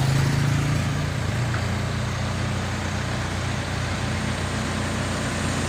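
Heavy diesel engine running steadily with a low, even drone, slightly louder in the first second.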